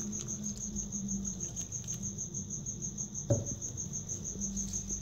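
High-pitched cricket chirping in rapid, evenly spaced pulses, over a steady low hum; a little over three seconds in, one clunk as the steel saucepan is set down.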